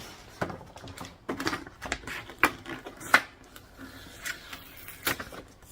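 Irregular knocks, taps and rustling as a boxed dehumidifier and its packaging are handled during unpacking. Two louder sharp knocks come about two and a half and three seconds in.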